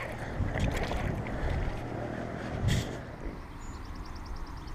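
Wind and handling noise on the microphone, with a few knocks, while a baitcasting reel is cranked to bring in a hooked bass. A fast, high ticking starts about three and a half seconds in.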